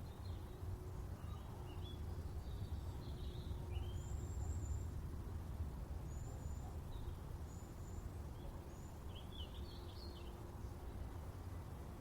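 Garden ambience: scattered short bird chirps and calls over a steady low rumble.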